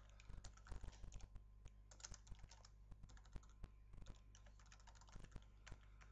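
Faint typing on a computer keyboard: irregular keystrokes in short flurries with brief pauses between them.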